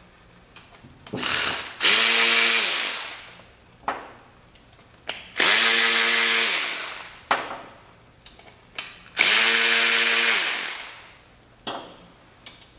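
Snap-on 14.4-volt quarter-inch cordless electric ratchet (CTR714A) undoing the nuts on a motorcycle's front engine cover: three runs of about a second and a half, each whirring up and winding down, with a shorter run before them and light clicks of nuts and tools between.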